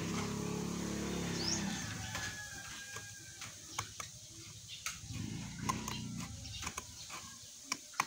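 A farm animal calls in the background: one long pitched cry at the start, then a shorter, weaker one about five seconds in. Scattered light clicks and rustles of paper being handled come through along with it.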